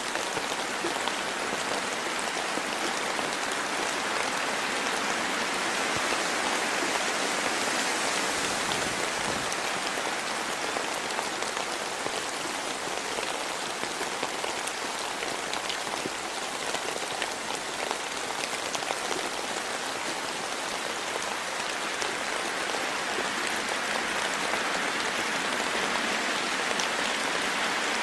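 Steady rain falling in a forest, an even hiss with scattered individual drops ticking.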